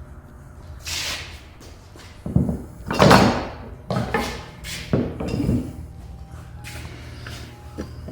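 Hand tools being handled and set down among wooden chest fittings: a series of knocks, clunks and scrapes, loudest between about two and six seconds in.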